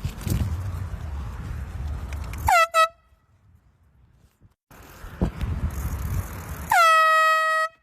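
Air horn blasting: a quick double blast about two and a half seconds in, then one long, loud blast near the end. Between the blasts there is a low rumbling noise.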